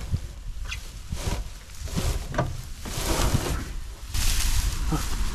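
Footsteps and rustling through tall dry grass, with several short knocks and clicks as the door of an old pickup truck is handled and opened, over a low wind rumble on the microphone.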